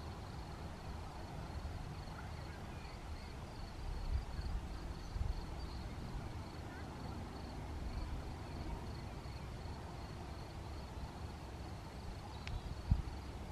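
Wind buffeting the microphone in low gusty rumbles, with a cricket chirping in the meadow in an even high-pitched pulse several times a second. A short click and a low thump come near the end.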